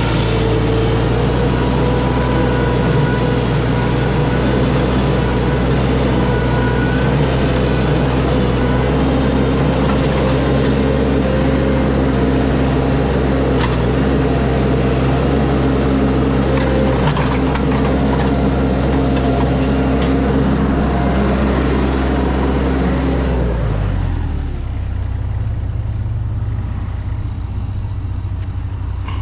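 A heavy engine running steadily at a raised speed, then dropping to a lower idle about 24 seconds in.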